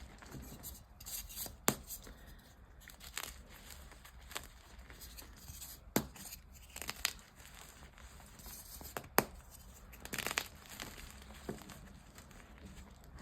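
Dyed gym chalk being crushed and crumbled: crunchy, powdery crackling with three sharp snaps about two, six and nine seconds in.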